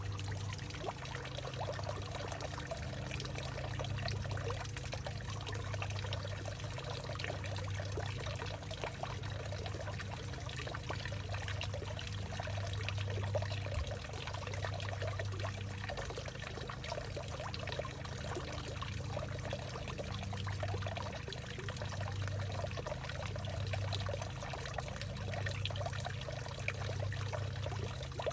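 Water steadily trickling and pouring into a hollowed-out tree, a continuous splashing patter over a low hum that swells and fades.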